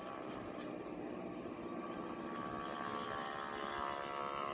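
Steady droning soundtrack from a worn videotape playing through a TV, several pitches held together, growing a little louder and rising slightly near the end.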